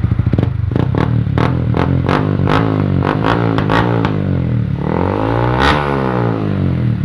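Yamaha Sniper 155's single-cylinder engine revving through an exhaust with a new elbow and a hollowed-out ('kalkal') muffler: a run of quick sharp throttle blips, then a longer rev that rises and falls about five seconds in.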